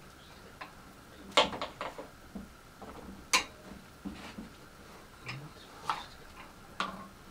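Irregular sharp clicks and knocks, about ten of them, two standing out above the rest, as hard parts are handled and set down during assembly.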